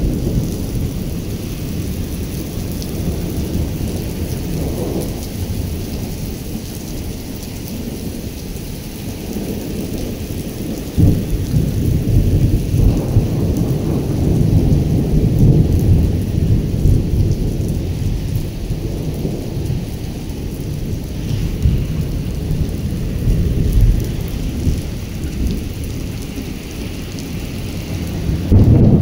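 Heavy rain in a storm falling on wet pavement, under a loud low rumble that swells and fades and jumps up suddenly about eleven seconds in.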